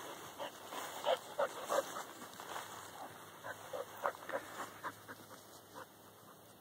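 A dog giving a quick, irregular series of short barks at a whitetail doe across the fence, loudest about one to two seconds in, dying away near the end.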